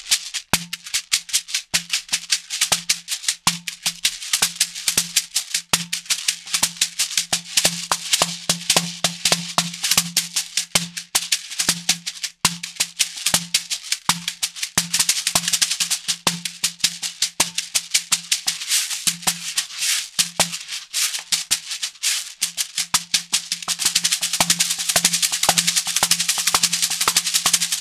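Cuban shekere, a gourd covered in a net of beads, played in a continuous rhythmic groove. The beads make a dense rattle with many strokes a second, and a low tone pulses underneath. The rattle grows denser over the last few seconds.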